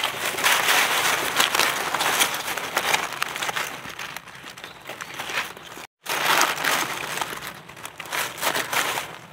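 Dry leaf litter crunching and crackling as gloved hands and a knife dig out and cut a mushroom at its base. The sound stops for a moment about six seconds in, then carries on.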